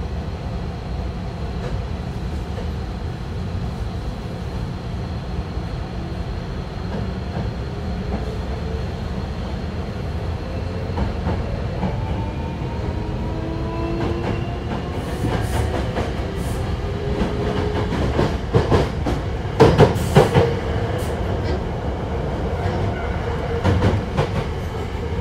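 Hankyu 1000 series electric train with a Toshiba permanent-magnet synchronous motor drive, heard on board. A steady hum with a thin high tone gives way, about ten seconds in, to the rising whine of the inverter and traction motors as the train accelerates, several notes climbing together. Over the following seconds the wheels clatter sharply over rail joints and points.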